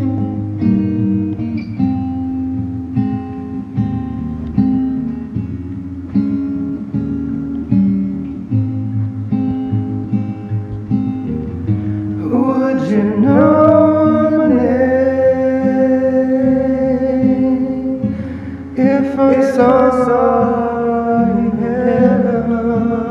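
Acoustic guitar finger-picking a slow, gentle intro. About twelve seconds in, a lead melody made of pitched cat meows comes in over the guitar, each note sliding up at its start, and comes in again near the end.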